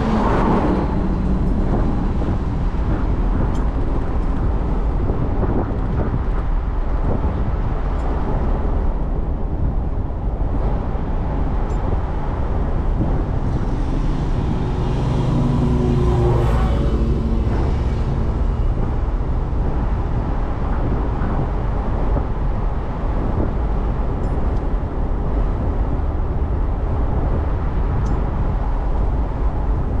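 Steady road noise of a car being driven, with tyre and engine rumble. About halfway through, another vehicle passes, its engine hum swelling and fading over a few seconds.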